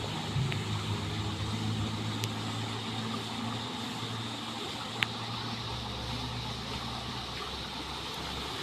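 Steady low engine-like hum of a motor running at a distance, with one sharp click about five seconds in.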